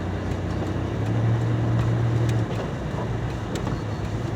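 1995 Ford Aerostar van's V6 engine running as it drives on a snowy road, heard from inside the cabin. The engine note gets louder about a second in and drops back about halfway through.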